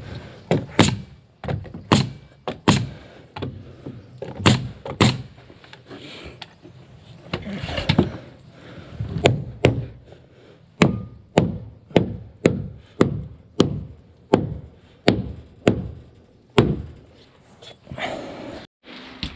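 Nails being driven into timber framing: a string of sharp strikes, spaced irregularly at first, then a steady run of about two a second through the second half.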